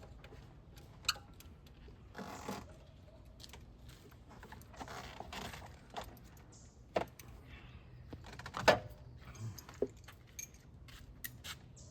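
Metal hand tools being handled: scattered light clinks, rattles and sharp clicks, the loudest click a little before the end.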